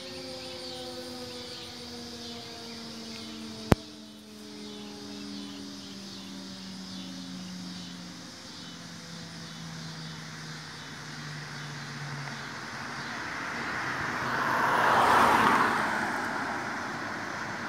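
Federal Signal 2001-SRN electromechanical warning siren winding down after a severe thunderstorm warning sounding, its pitch falling steadily for about twelve seconds until it fades out. A sharp click comes about four seconds in. Near the end a broad rushing noise, like a passing vehicle, swells to the loudest point and eases off.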